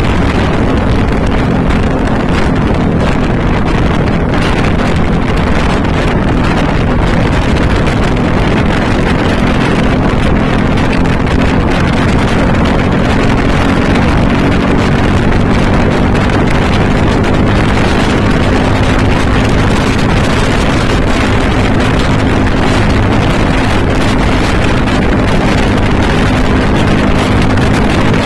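Motorcycle engine running at a steady cruising speed with an even, unchanging pitch, mixed with wind buffeting the on-board microphone.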